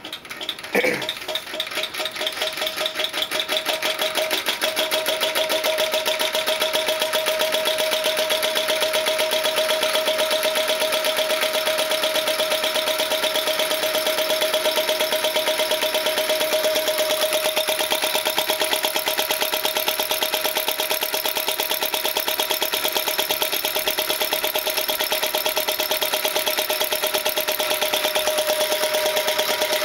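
Homemade Stirling engine with a copper-pipe piston and heavy iron flywheel, running with a fast, even mechanical clatter. It builds up over the first few seconds, then holds a steady rhythm, with a steady high tone joining in about four seconds in.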